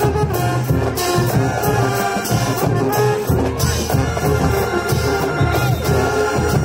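Music with a steady beat and a deep, pulsing bass.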